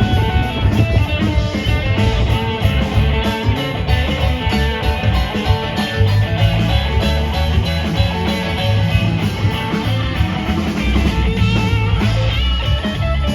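Live rock band playing an instrumental passage: guitars over bass and drum kit.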